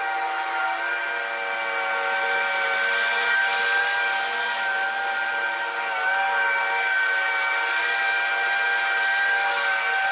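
Zero-turn lawn mower with a grass bagger running under load while cutting tall wet grass, a steady high whine over its engine. It grows a little louder as it comes near.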